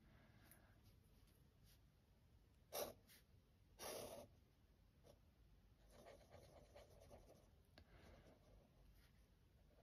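Lamy Safari fountain pen's nib faintly scratching across sketchbook paper as lines are drawn, with two louder, brief scratches about three and four seconds in.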